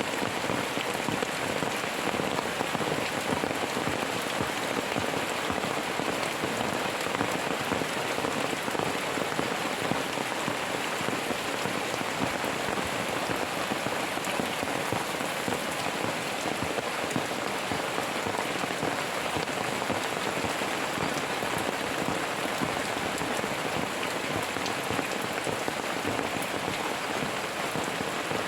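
Steady heavy rain falling and pattering on a surface, a dense even hiss of many drops with no thunder clap.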